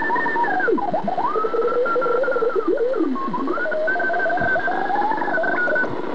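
Realistic DX-66 shortwave radio being tuned by hand: hiss and static with whistling tones that slide up and down in pitch as the dial sweeps across signals. The whistles stop near the end.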